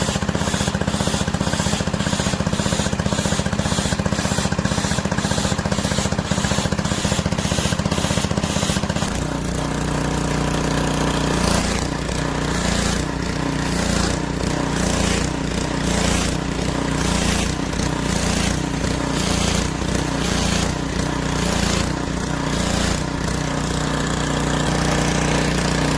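Pressure washer engine and pump running, with water spraying. About nine seconds in, the steady note drops and begins to surge up and down rhythmically. The pressure is fluctuating, which the owner puts down to a faulty valve.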